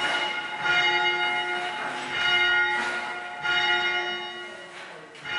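Church tower bells ringing, a fresh stroke about every second, each one ringing on into the next.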